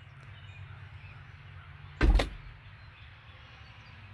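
A single short, loud thump about two seconds in, heavy in the low end and dying away within half a second, over a low steady background rumble.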